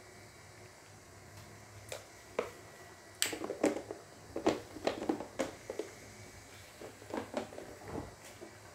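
A spoon clicking and knocking against a stainless steel cooking pot. A couple of taps come about two seconds in, a quick cluster follows around the middle, and a few more come near the end, over a faint steady hum.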